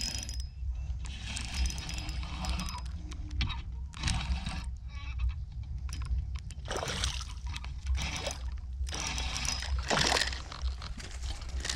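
A hooked bass splashing at the water's surface as it is reeled in to the bank, in repeated surges, with the loudest splash about ten seconds in. A steady low rumble lies beneath.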